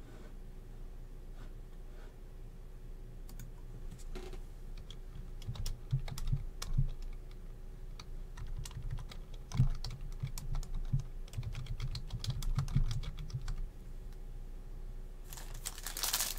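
Typing on a computer keyboard: irregular key clicks, in quick runs, with pauses between them. Near the end a foil trading-card pack starts to crinkle loudly as it is picked up.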